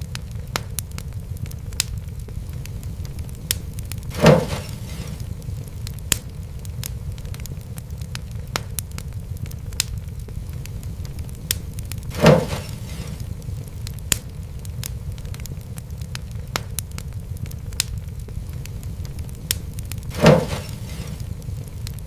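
Wood fire crackling in a fireplace: a steady low rumble of flames with scattered sharp crackles. Three louder pops come at even intervals about eight seconds apart.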